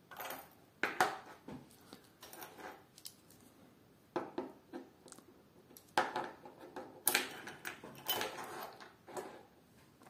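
Small metal keychain items (a flashlight, a whistle and a clip) being handled and set down, with a series of separate clinks and clicks a second or two apart and soft rustling between them.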